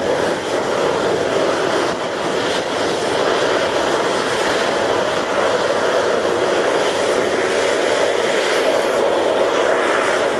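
Jet aircraft engines running with a loud, steady rushing roar that holds level throughout.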